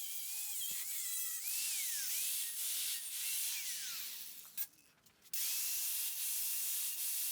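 Distant chainsaw revving up, holding and dropping back several times, heard faintly over a steady hiss. The sound cuts out briefly about five seconds in.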